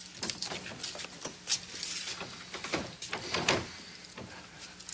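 Footsteps and a door being handled as people walk through a doorway: a run of light clicks, knocks and rustles.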